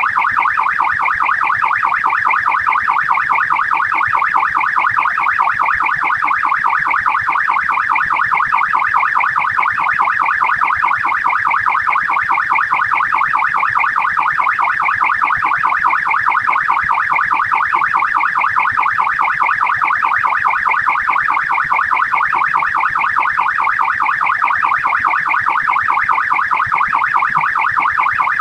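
Australian police car siren in fast yelp mode: a rapid, continuous up-and-down wail repeating several times a second without let-up.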